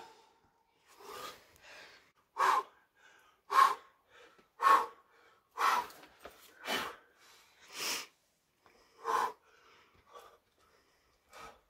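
A climber's short, forceful breaths, one on each hard move: about eight sharp exhalations spaced roughly a second apart.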